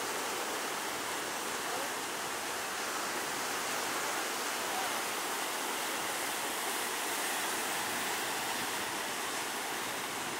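Steady rushing of water, an even hiss with no breaks or surges.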